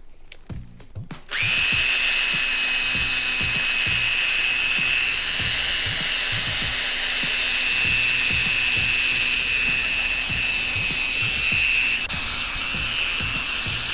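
Power drill spinning a 1000-grit sanding disc against a plastic headlight lens. It starts about a second in and runs steadily with a high whine, easing slightly near the end.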